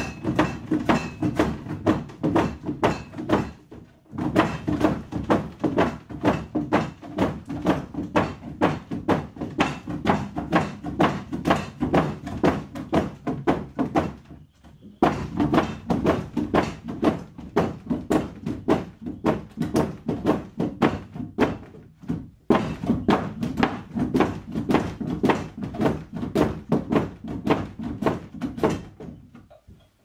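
Rapid, regular knocking thuds, about three a second, that stop briefly three times and cut off just before the end.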